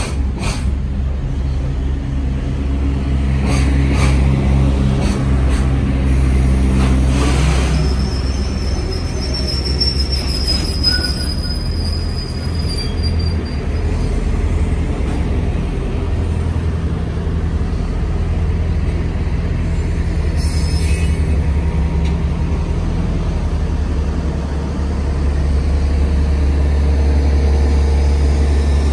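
Long container freight train rolling past: a steady low rumble of steel wheels on rail with occasional clacks at the rail joints. A thin high wheel squeal rises over it for several seconds around the middle.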